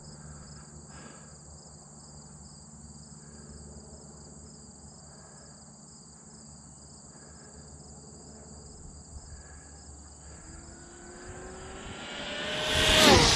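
Traxxas XO-1 RC car's brushless electric motor on a high-speed run: a whine comes in about ten seconds in, climbing in pitch and getting louder. It peaks near the end and sweeps down in pitch as the car passes close by.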